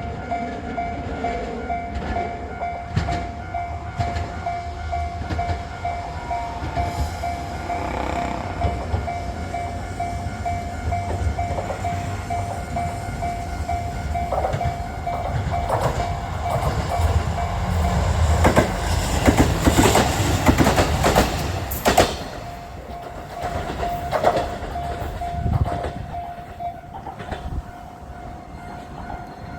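Japanese level-crossing warning bell ringing in a steady pulsing tone while the Nanohana diesel railcar passes over the crossing. The train's low rumble and the wheels clacking over the rail joints build up, are loudest about two-thirds of the way in, then drop away suddenly while the bell keeps ringing.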